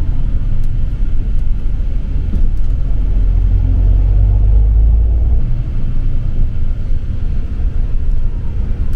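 Low, steady rumble of a coach bus on the move, heard from inside the passenger cabin: engine and road noise, heaviest around the middle and easing a little after.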